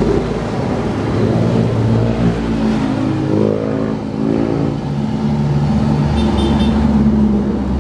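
Street traffic: motor vehicle engines running close by. One engine's pitch rises and then falls about three to four seconds in, as a vehicle revs or passes.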